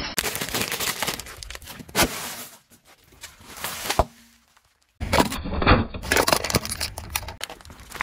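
Coloured light bulbs shattering under a car tyre: a dense run of crackling and snapping shards. After a short silent break, more crunching and crackling as the tyre crushes another object.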